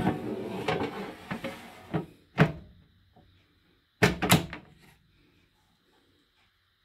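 Air fryer's plastic pull-out basket sliding and scraping in its housing, with a knock, then pushed back in and shut with two sharp clunks about four seconds in.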